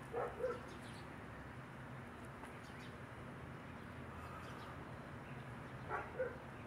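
Two pairs of short, sharp animal calls, one pair right at the start and another near the end, heard faint over a steady low outdoor hum.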